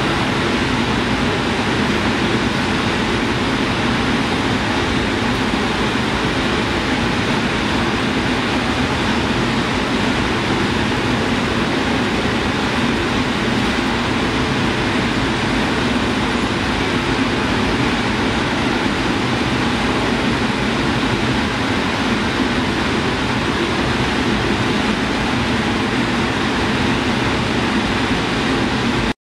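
A steady, dense rushing and rumbling noise that never changes in loudness and cuts off abruptly near the end.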